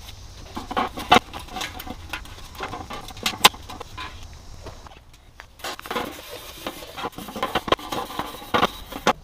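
Old gasket being peeled and pulled off the flange of a transmission oil pan: irregular rubbing, scraping and squeaky handling noises with several sharp clicks, the loudest about a second in and again past three seconds, and a short lull about five seconds in.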